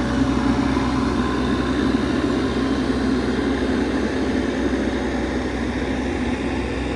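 Excavator's diesel engine running steadily under load, a dense low rumble with a steady hum underneath.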